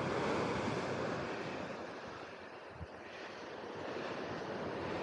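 Sea surf washing onto the beach, a steady rush that swells, dips about halfway through, then builds again, with wind buffeting the microphone.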